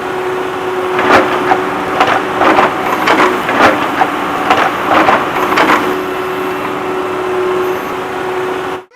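A steady mechanical hum and hiss with a string of about ten sharp knocks and clatters between about one and six seconds in.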